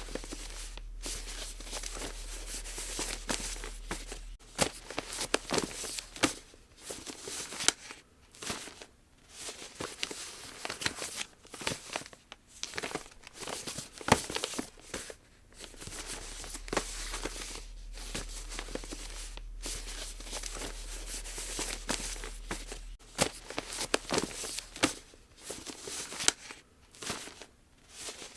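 Square origami paper being folded by hand: paper rustling and crackling in short, irregular bursts as the sheet is handled and creases are pressed.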